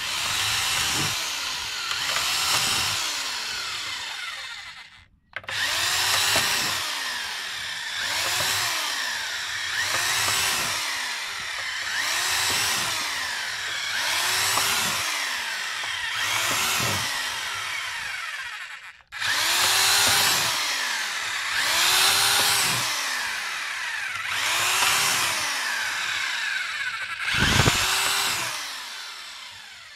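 Corded electric hand drill boring small holes through a plastic jerrycan. The motor whines up and winds down again in short pulses about every two seconds, and stops briefly twice.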